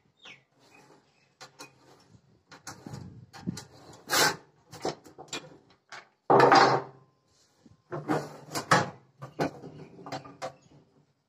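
Thin steel sheet and a steel square being handled on a wooden workbench: scattered scrapes, taps and clunks, the loudest about six and a half seconds in, then a run of knocks as the sheet is lifted.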